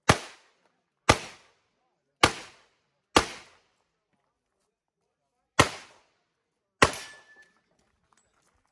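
A handgun fires six shots: four about a second apart, a pause of about two and a half seconds, then two more a little over a second apart. Each shot is a sharp crack that dies away quickly.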